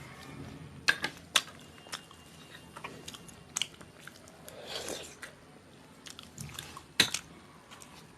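Close-miked chewing and mouth sounds of eating chhole bhature, chickpea curry with fried bread, with a few sharp clicks; the loudest click comes about seven seconds in.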